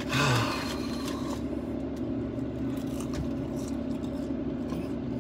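Steady hum inside a parked car's cabin, its engine idling, with a few faint clicks. A brief vocal sound from the man right at the start is the loudest moment.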